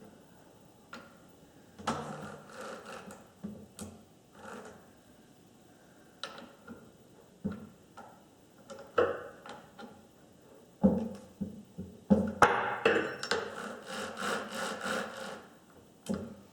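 Chainsaw parts being handled and fitted back together: scattered knocks, clatters and short scrapes of metal and plastic. About two-thirds of the way in comes a longer run of quick, rasping strokes.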